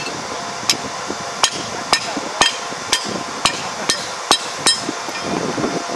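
A hand hammer striking a bent steel claw from an Iseki ER470 combine on an asphalt road: about nine sharp, ringing metal blows, roughly two a second, that stop a little before the end. The claw is being hammered straight.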